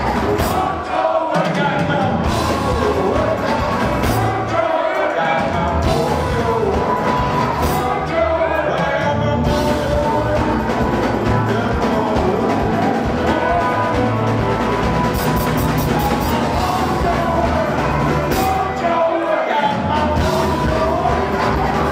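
Live blues band playing: several blues harmonicas wailing with bending notes over electric guitar, drums and bass.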